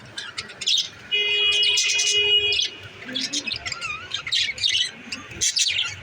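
Pet budgerigars chattering and chirping in fast, busy bursts. About a second in, a steady held tone lasting about a second and a half stands out as the loudest sound.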